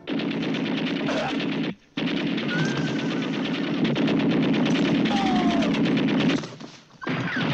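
Machine gun firing in long, rapid bursts from a wagon-mounted gun, as in a film soundtrack. The fire breaks off briefly about two seconds in and again near the end.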